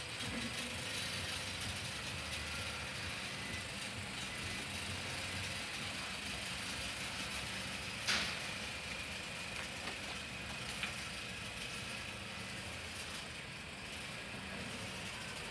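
Nissan Serena minivan's engine running at low speed as it is manoeuvred slowly, a steady low hum, with one sharp click about halfway through.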